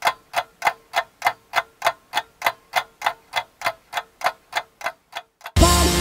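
Clock-ticking sound effect, a steady run of sharp ticks about three and a half a second with a faint held tone underneath. It cuts off about five and a half seconds in as loud electronic dance music with heavy bass starts.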